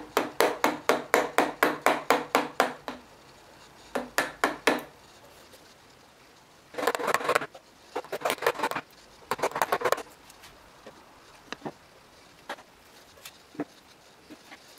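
Chisel struck with a small mallet while chopping waste out of a groove across a board: a quick run of sharp strikes, about five a second, then a few more. This is followed by three short bursts of rapid taps and a few scattered light clicks.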